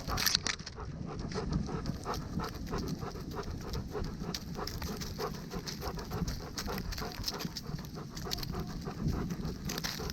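Dog panting steadily close to the microphone, with many quick clicks and a low rumble from the dog-mounted camera as it moves.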